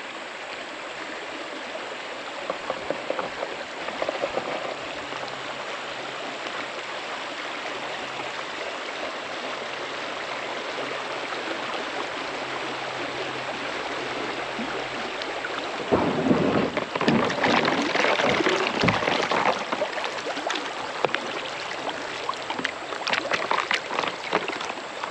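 Creek water running steadily. About two-thirds of the way through, a louder stretch of irregular knocks and low rumbles starts.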